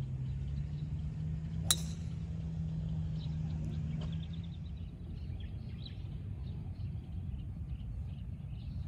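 A golf club strikes a ball once, about two seconds in: a single sharp click with a brief ring. A steady low hum runs underneath and fades out around halfway through, and faint bird chirps are heard.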